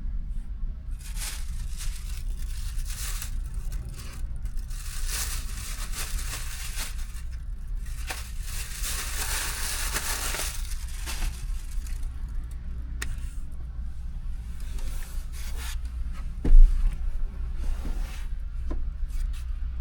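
Plastic food packaging rustling and crinkling as it is handled and torn open, with a few clicks and one sharp thump near the end. A steady low hum sits underneath.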